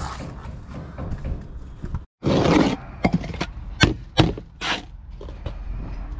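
Steel bricklaying trowel on a mortar spot board: one loud scrape of about half a second, then a handful of sharp clinks and short scrapes about every half second as mortar is worked. Before that, a steady background rush of wind and site noise.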